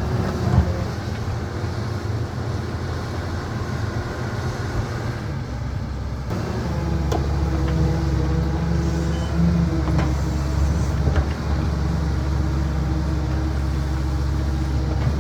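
Diesel engine of a CAT 320 hydraulic excavator running steadily; its note changes and grows stronger about six seconds in. A few sharp knocks come near the middle.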